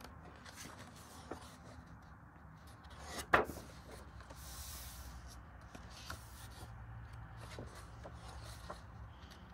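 Colouring book pages being turned by hand: faint paper rustles and small taps, with one sharp, louder crackle a little over three seconds in.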